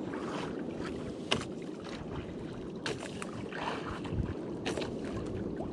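Steady wind and water noise with a few sharp clicks and knocks spaced a second or two apart.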